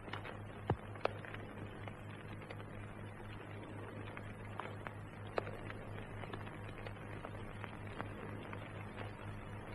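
Steady low hum with scattered clicks and crackle, the background noise of an old film soundtrack, a few sharper clicks standing out about a second in and past the middle.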